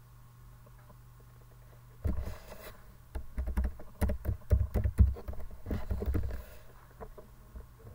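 Computer keyboard being typed on: a quick run of keystrokes, each with a low thud, starting about two seconds in and lasting about four seconds, over a faint steady hum.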